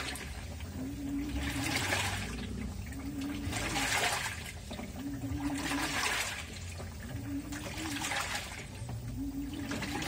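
LG 18 kg washing machine agitating during its rinse cycle: water sloshing in the drum with a short motor hum, in strokes about every two seconds.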